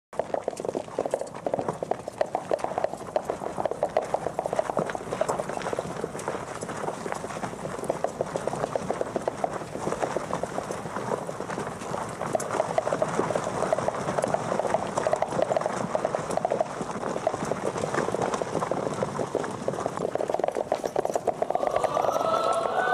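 Horses galloping: a dense, continuous clatter of hooves. Music comes in near the end.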